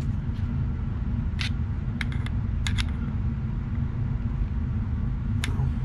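A handful of light, sharp clicks from a flat-blade screwdriver tip working against the plastic needle holder inside a motorcycle carburetor's vacuum piston as it is twisted without turning easily, over a steady low hum.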